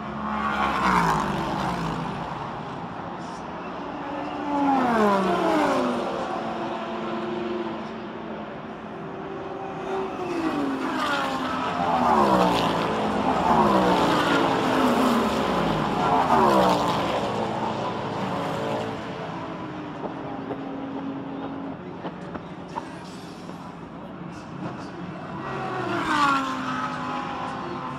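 Prototype race cars passing one after another at speed, each engine note sliding down in pitch as the car goes by. There are several passes, with a cluster of cars in the middle.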